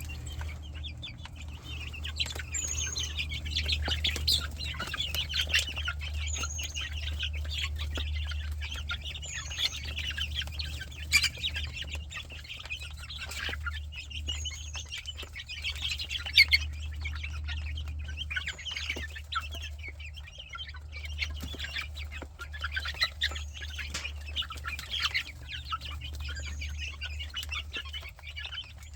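A flock of chickens clucking and chattering continuously at feeding time, with a short high falling call every few seconds and a few sharp clicks. A steady low hum runs underneath.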